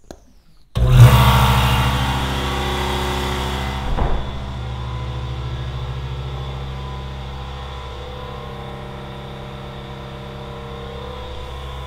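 Husky 60-gallon air compressor kicking on suddenly about a second in and running steadily with a hum and hiss. About four seconds in, the closet door thumps shut. From then on the compressor runs on, quieter and muffled through the insulated enclosure.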